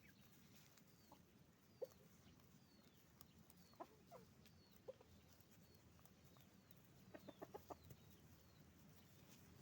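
Domestic hens clucking faintly, with scattered single clucks and a quick run of about five clucks about three-quarters of the way through.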